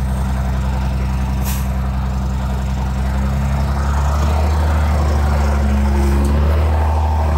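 Heavy vehicle engine running steadily at low revs, a little louder from about three to four seconds in.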